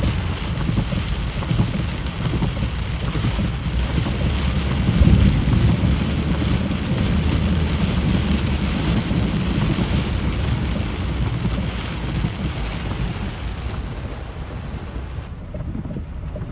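Torrential rain pouring down in a flash-flood storm: a dense, steady hiss under a deep rumble that swells about five seconds in. Near the end the rain sound turns duller as its high part drops away.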